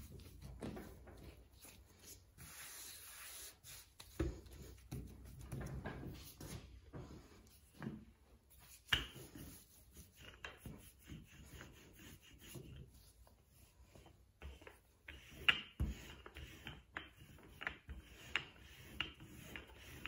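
Gloved hands pressing soft shortcrust dough, then a wooden rolling pin rolling it out on a floured wooden worktop: irregular rubbing and rolling strokes with a few sharp knocks.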